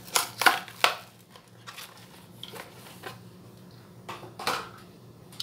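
Plastic blister pack and card of a Hot Wheels premium die-cast being handled and opened. A cluster of sharp crackles and clicks comes in the first second and another near the end, with quieter rustling between.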